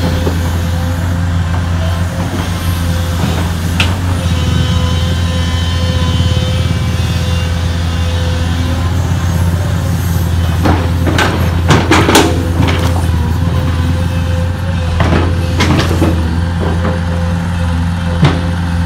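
Diesel engine of a Sunward SWE210ELR long-reach excavator running steadily while it digs in mud, with several short clanks from the arm and bucket in the second half.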